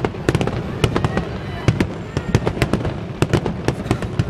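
Aerial fireworks shells bursting: a rapid, irregular string of sharp bangs and crackling pops, several a second.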